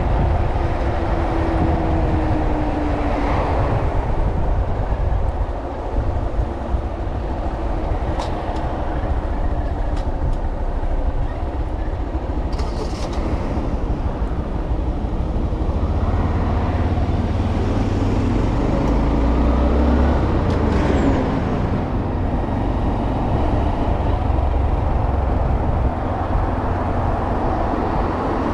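Honda Monkey 125's single-cylinder four-stroke engine running under way, buried in a heavy low wind rumble on the microphone; the engine note slides lower near the start and changes pitch again a little past halfway as the throttle changes.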